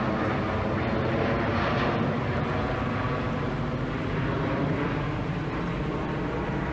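Aircraft engine noise from a plane passing: a steady, broad rumble that swells and eases slightly.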